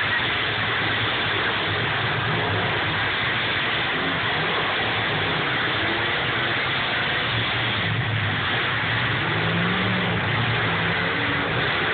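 Several demolition derby cars' engines running and revving together over a dense, steady din, with pitch rising and falling as they rev; one revs up clearly about nine seconds in.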